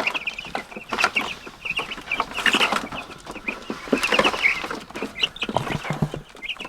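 A flock of young meat chickens peeping continuously in rapid, high chirps, mixed with scattered knocks and rustling.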